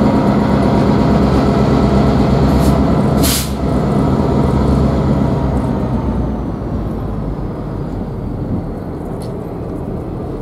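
Diesel locomotive engine drone and the rumble of the freight train moving away, fading from about six seconds in. A short, sharp hiss of air about three seconds in.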